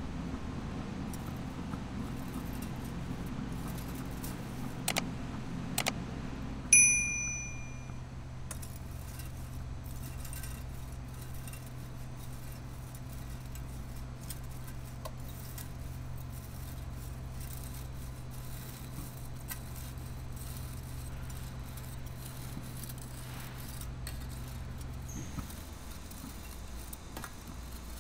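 A metal rod clinking against the crucible of melting aluminium chips: two light taps, then one loud ringing metallic ding about seven seconds in that fades over about a second. Under it runs a steady low electrical hum from the homemade electric furnace, which stops near the end.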